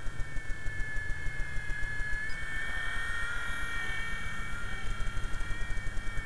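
Small radio-controlled model helicopter flying overhead: a steady high whine from its motor and rotors, rising a little in pitch from about two seconds in and settling back near the end, over a low rapid pulsing.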